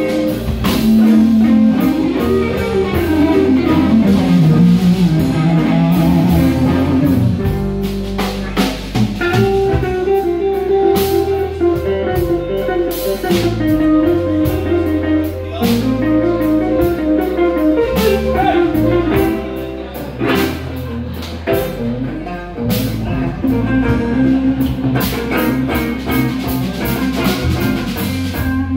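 Live band playing a blues number: guitar over bass and a drum kit.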